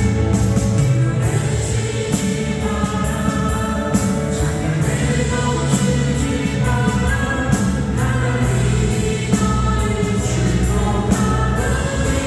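Christian worship song being sung, voices over instrumental accompaniment with a steady beat.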